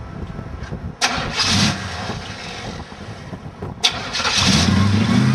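Chevrolet Monte Carlo SS V8 with a Holley 600 carburetor being cranked over, catching about four seconds in and settling into steady running.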